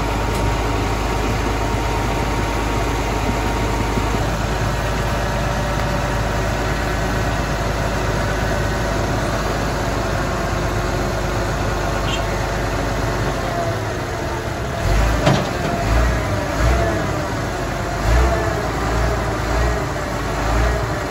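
Heavy diesel truck engine idling steadily. From about two-thirds of the way through, irregular low rumbling pulses join in.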